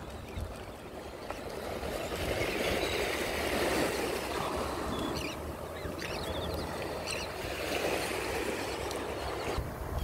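Ocean surf washing on the shore, swelling and easing, with wind rumbling on the microphone. Faint short seabird calls come from the flock several times between about five and seven seconds in.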